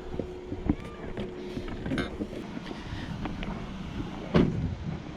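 Light clatter and knocks of junk being handled and moved, with one louder thump about four seconds in.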